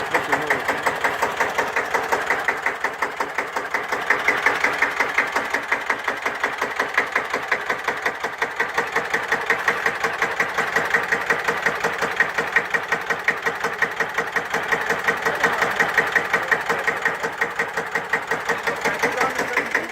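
1954 Deutz F1L612 tractor's single-cylinder air-cooled diesel engine idling, with an even beat of about five firing pulses a second.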